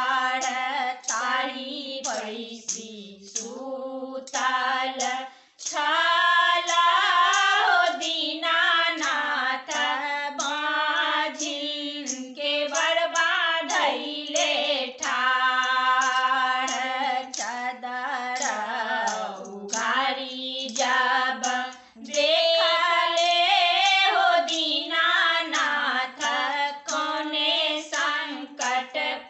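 Three women singing a Maithili Chhath folk song together, unaccompanied, with short breaths between the sung lines.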